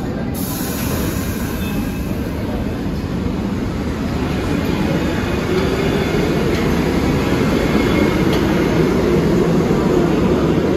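New York City subway train running along the tracks through the station, a steady rumble of steel wheels on rail that grows louder toward the end.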